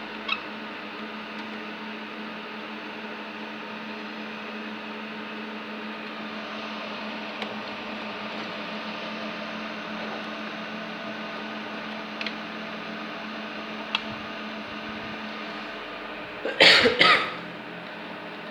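Steady machine hum with several steady tones, broken by a few faint clicks. Near the end a person coughs loudly.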